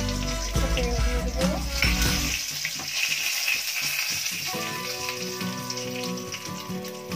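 Whole dried red chillies and bay leaves sizzling in hot oil in a kadai, over background music. The music drops out for about two seconds in the middle, leaving the sizzle on its own.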